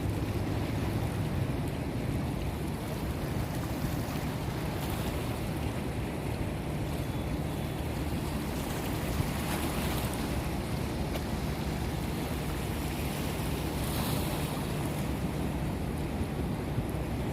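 Steady rush of moving water with wind buffeting the microphone, swelling briefly a couple of times.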